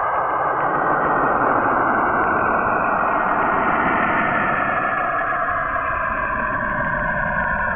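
Sonified Cassini radio recording of Saturn's auroral radio emissions: a steady, dense rushing hiss with faint tones that glide slowly downward through it.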